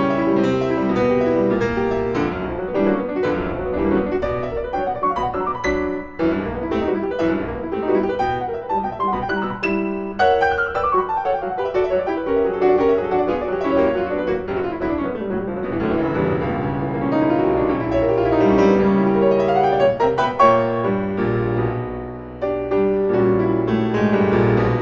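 Background piano music, a classical-style piece played in quick runs and chords.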